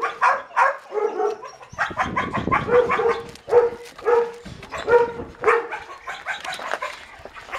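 Dog barking repeatedly in short barks, roughly one or two a second.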